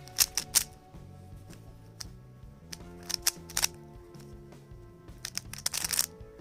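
Plastic Rubik's cube being twisted, its layers clicking in quick bursts, with a dense run of clicks about five seconds in, over steady background music.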